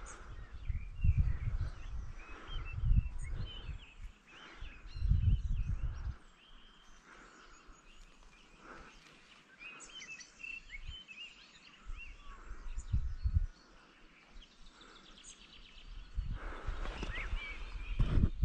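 Small birds chirping and calling repeatedly, with irregular low gusts of wind buffeting the microphone in the first few seconds, once in the middle and again near the end.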